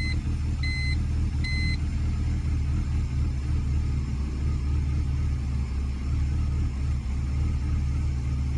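2003 BMW 325i (E46) 2.5-litre inline-six idling steadily with its mass airflow sensor unplugged. The engine has a rough idle that the owner cannot trace and suspects comes from some kind of leak. A short beep sounds three times in the first two seconds.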